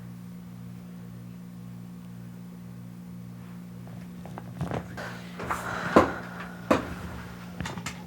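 Clicks and knocks of a chiropractic adjustment on a treatment table, starting about halfway through and peaking in one sharp crack about six seconds in, over a steady low hum.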